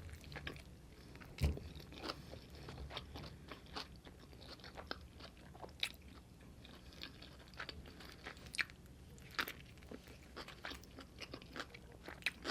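Close-miked chewing of a mouthful of burrito, with many small wet clicks and crunches throughout and a few louder crunches. There is a low thump about a second and a half in.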